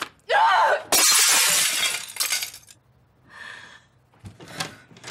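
Something thrown and smashing: a loud breaking crash about a second in that dies away over a second and a half, with a short pitched sound just before it.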